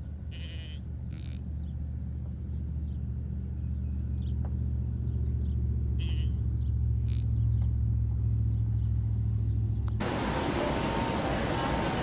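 A vehicle engine runs with a steady low hum that slowly grows louder, with a few short high calls over it. About ten seconds in, the sound cuts suddenly to a loud, even hiss.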